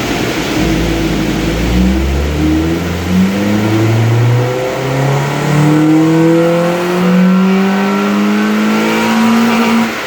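Honda D-series four-cylinder in an EK Civic making a full-throttle pull on a chassis dyno, its revs climbing steadily for about nine seconds, then cut off suddenly near the end. This is the baseline run, with the ignition timing still set well advanced.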